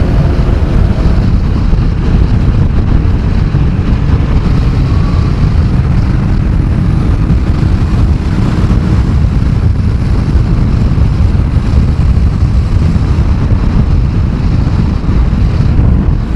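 Honda CBF1000 inline-four motorcycle riding at a steady road speed. Its engine note is largely buried under loud, steady wind rush on the bike-mounted camera's microphone.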